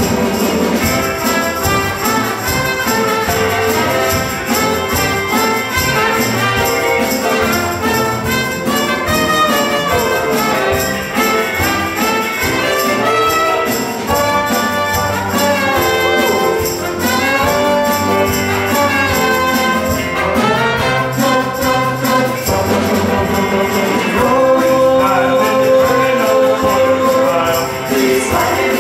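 Upbeat band music with brass and tambourine.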